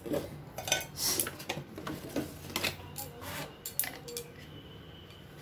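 Spoons clinking and tapping against a bowl and small spice containers: a run of about a dozen quick clinks that stops after about four seconds, as spices are spooned into flour for a batter.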